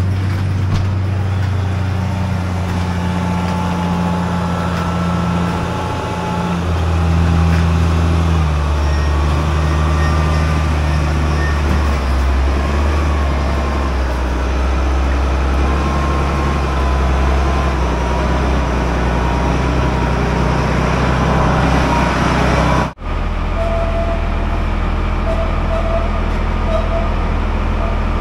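Large forklift's engine running, its speed stepping up and down. About 23 seconds in, a sudden cut gives way to a steadier, lower engine tone.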